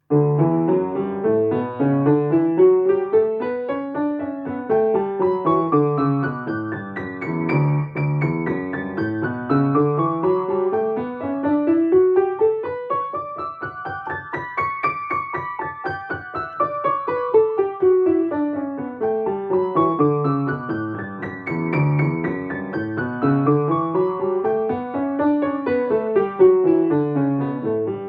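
Piano scales played with both hands together in similar motion, running up and down several octaves in even, quick notes and turning at the top three times.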